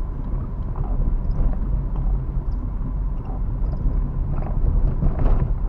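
Car driving in traffic, heard from inside the cabin: a steady low rumble of engine and tyre noise, with a brief louder rush of noise about five seconds in.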